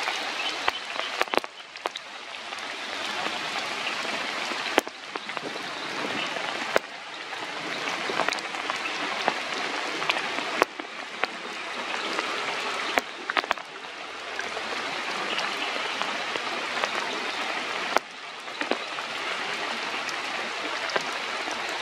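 Steady rainfall, an even hiss, with scattered sharp ticks of drops striking close by. It breaks off abruptly several times and builds back up.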